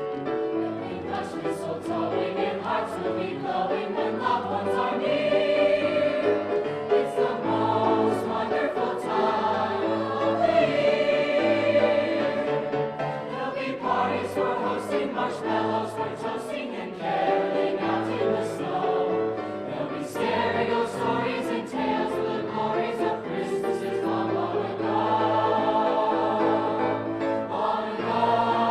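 High school choir singing a Christmas choral piece in several-part harmony, with sustained chords that change note by note.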